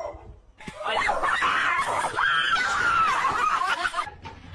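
A person screaming: long, high shrieks whose pitch wavers up and down, starting about half a second in and stopping about four seconds in.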